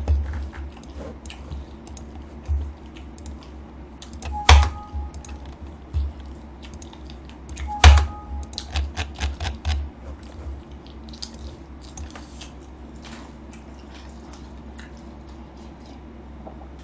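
Computer keyboard typing and clicking in irregular short runs, with two louder sharp knocks about four and a half and eight seconds in; the clicking thins out after about ten seconds.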